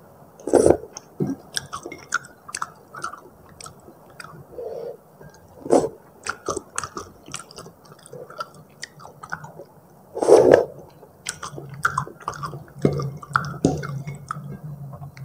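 Close-miked chewing of the last mouthful of Indomie goreng instant fried noodles: wet mouth clicks and smacks in an uneven run, with a few louder bites or slurps at intervals.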